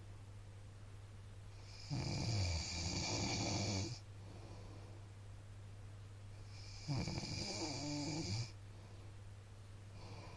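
A sleeping man snoring: two long snores about five seconds apart, each lasting around two seconds, over a steady low hum.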